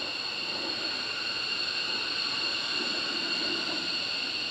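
F-15DJ Eagle's twin F100 turbofan engines at taxi power: a steady high whine over a rushing hiss.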